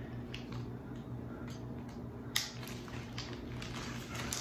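Hands handling plastic wrapping and foam packing in a cardboard box: light rustling with scattered small clicks, one sharper click a little over two seconds in, over a faint steady low hum.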